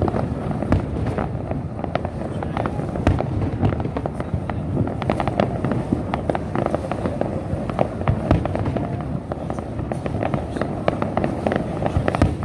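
Aerial fireworks display: a dense, unbroken run of sharp bangs and crackles from shells bursting overhead.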